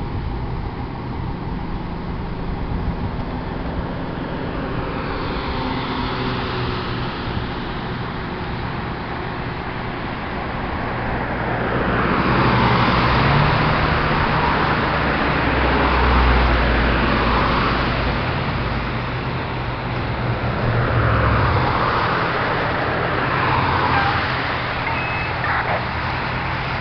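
Road traffic passing close by several times, each vehicle a rising and falling rush of tyre and engine noise, the loudest about halfway through. Underneath, a steady low hum of fire apparatus engines idling.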